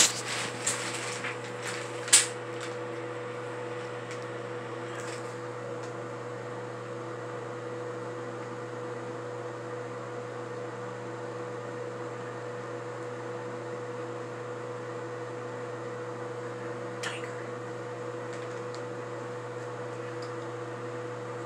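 Steady hum of a ventilation fan motor with one constant tone, which does not change. A few clicks and rustles come in the first two seconds, the sharpest about two seconds in.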